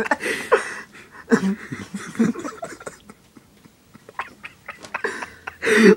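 A person's voice making short wordless sounds that bend in pitch, then a loud one near the end.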